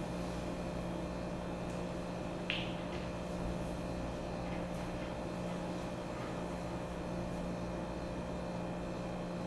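Quiet room tone: a steady low hum with a faint hiss, and a single short sharp click about two and a half seconds in.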